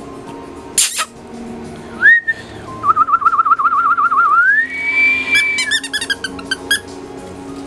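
Whistling: a short rising note, then a warbling trill that climbs to a held higher note, then a quick run of chirps. A sharp click comes just before it, with background music underneath.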